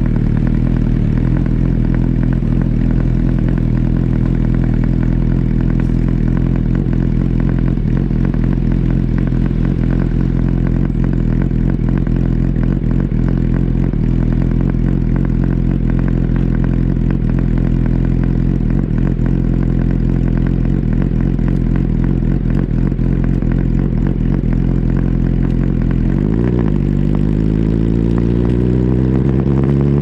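2008 Yamaha R1's inline-four engine running at a steady engine speed, recorded close up on the bike. About 26 seconds in the pitch dips briefly, then climbs steadily as the bike accelerates.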